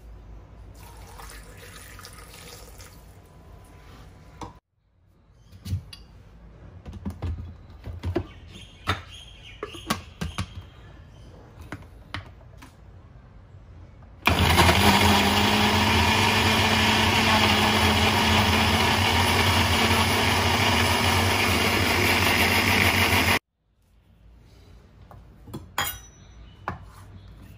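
Scattered kitchen knocks and clicks, then an electric blender starts up about fourteen seconds in. It runs loudly and steadily with a constant motor hum for about nine seconds and stops abruptly.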